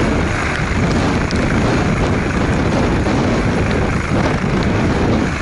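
Helicopter's turbine engine and rotor running steadily while it sits landed on the snow, loud and close.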